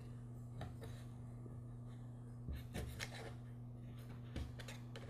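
Faint handling noises: a few light clicks and rubs of small parts as the gasket on a lawnmower carburetor's heat shield is swapped, over a steady low electrical hum.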